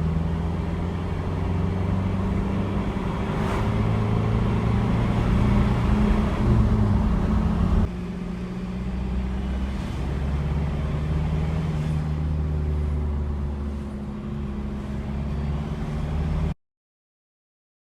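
Ford Ranger turbo-diesel engine running on the road, its note rising as it pulls under acceleration. It changes abruptly about eight seconds in, then runs steady, and cuts off to silence near the end.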